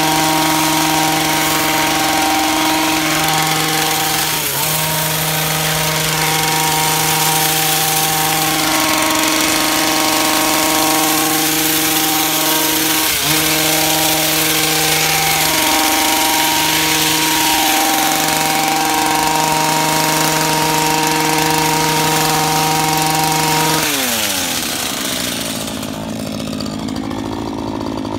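Stihl pole hedge trimmer running at full speed while its blades cut through holly, its pitch dipping briefly a few times. About 24 seconds in it shuts off and winds down with a falling pitch.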